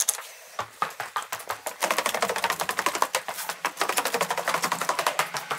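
Footsteps going down bare stairs, with clothing rustling against the microphone: a fast, uneven run of clicks and light thuds that picks up about two seconds in.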